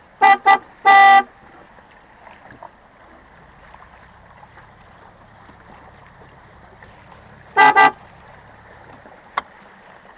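A horn tooting: two quick beeps and a longer blast in the first second or so, then two more quick beeps about seven and a half seconds in, over a steady background of water and boat noise.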